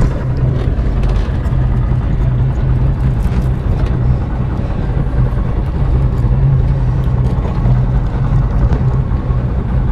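Boat engine running steadily with a low, even hum, over wind and water noise.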